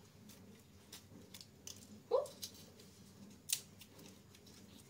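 Scattered small, sharp clicks and taps from whole spices being fitted into a tea strainer. About two seconds in there is a brief rising squeak, the loudest moment.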